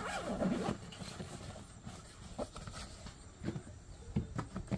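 A nylon carry bag being handled and unzipped: soft rustling with a few scattered light knocks, clustered near the end.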